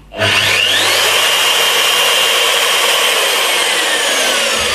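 Fein KBM 50 Auto magnetic core drill motor switched on and running free, its whine rising quickly to a steady high pitch. About three seconds in, as the machine is tilted sideways, a falling whine sets in: the acceleration sensor has cut the power and the motor is winding down.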